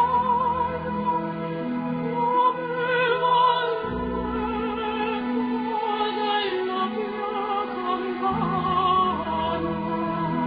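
Music: an operatic melody sung with strong vibrato over held low accompaniment notes that change a few times.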